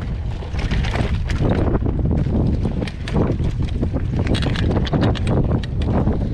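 Wind buffeting the microphone while riding a mountain bike on a dirt trail, with frequent short clicks and rattles from the bike and tyres over rough ground.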